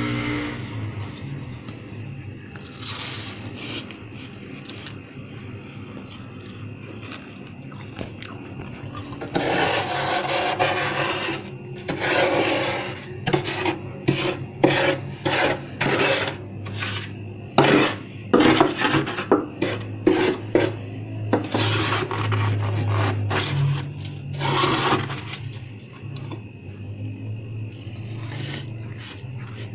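Steel spatula scraping soft, fluffy freezer frost. The scrapes are gentle at first, then from about ten seconds in come a long loud stroke and a run of quick, short scrapes, easing off near the end. A steady low hum sits underneath.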